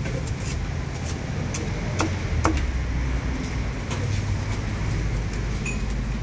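Chef's cleaver chopping poached chicken on a wooden chopping block: scattered knocks, the sharpest about two seconds in, over a steady low rumble.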